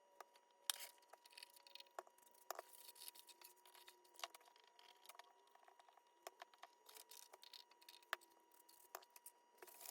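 Faint scattered clicks and light rustling of armor parts and straps being handled and fitted.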